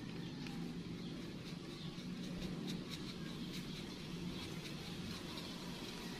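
Quiet background ambience: a steady low hum with faint, scattered high chirps and ticks throughout.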